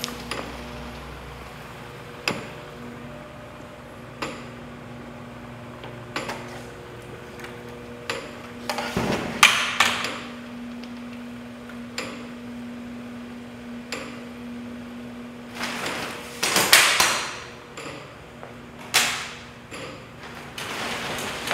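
Parts of a Rube Goldberg machine at work: a steady electric motor hum with a sharp click about every two seconds. A few louder clattering impacts and rushes of noise come near the middle and again toward the end.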